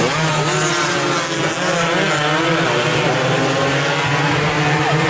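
Several small racing motorcycle engines running at high revs, their pitch rising and falling as the bikes pass one after another.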